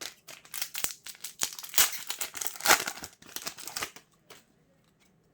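Foil wrapper of a Yu-Gi-Oh booster pack crinkling as it is torn open and handled, a dense crackle lasting about four seconds and then stopping.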